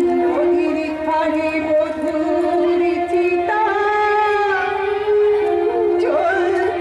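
A woman singing a slow, ornamented song over a steady held instrumental note, picked up through overhead stage microphones.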